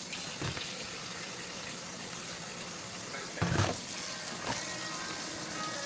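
Kitchen tap running steadily into a sink, with a light knock early on and a louder clunk of dishes or a pot about three and a half seconds in.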